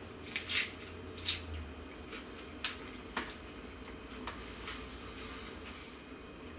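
Crisp lettuce cup being bitten into and chewed: a few sharp crunches close together in the first second and a half, then fainter, scattered crunches about a second apart.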